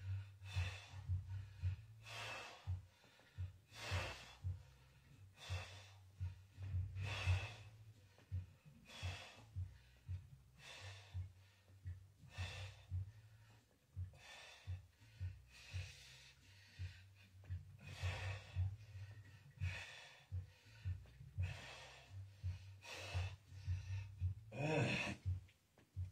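A man breathing hard while pressing dumbbells: a short, forceful breath about every second, with a louder one near the end.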